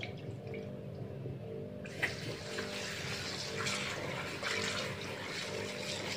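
Water splashing and sloshing in a plastic basin as bean sprouts and green onions are rubbed and rinsed by hand. The water noise grows louder and fuller about two seconds in.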